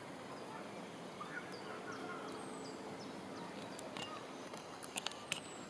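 Quiet forest ambience with faint, short bird calls in the first half, then a few sharp clicks from about four seconds in.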